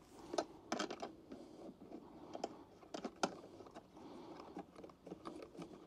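Faint, irregular clicks and taps of a brass hose fitting being handled and threaded onto the brass inlet port of a Fieldpiece VPX7 vacuum pump.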